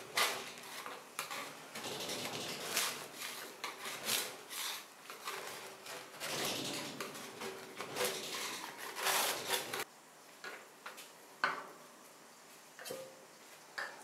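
Metal spatula scraping across a steel cold plate, lifting thin frozen ice cream into rolls in rough, uneven strokes. The scraping stops about ten seconds in, followed by a few light knocks.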